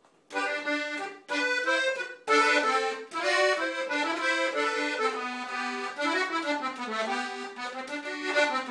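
Accordion playing the instrumental introduction to a corrido: two short chords, then a running melody from about two seconds in.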